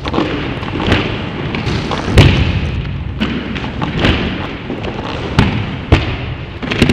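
Deep booming thuds, about one a second, over a continuous rumbling noise: heavy percussion hits in a soundtrack.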